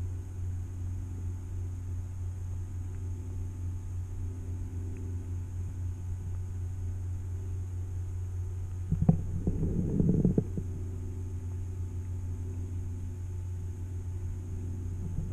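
Muffled underwater sound picked up by a camera held below the surface: a steady low hum, with a louder burst of rumbling and knocks about nine seconds in.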